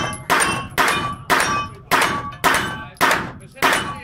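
Luvo LA-15 9×19 mm AR-style carbine firing a steady string of single shots, about two a second and seven in all, each echoing off the walls of an indoor range.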